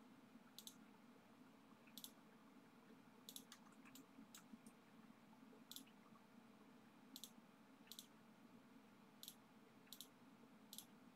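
Faint computer mouse button clicks, about a dozen at irregular intervals, as points are placed while drawing lines in CAD software. A low steady room hum sits underneath.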